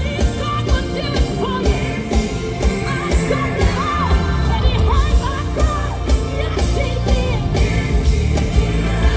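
Live gospel band playing with a steady beat, a voice singing and shouting over it.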